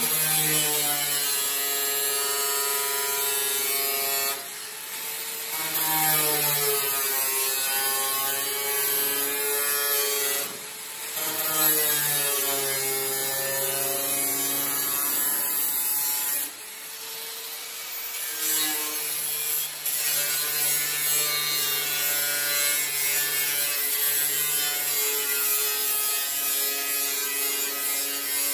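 DeWalt angle grinder with a thin cut-off wheel slicing through the old sheet-steel quarter panel of a 1930 Ford roadster: a steady high motor whine that sags in pitch as the wheel bites into the metal and recovers as the load eases, with three short let-offs about 4, 10 and 17 seconds in.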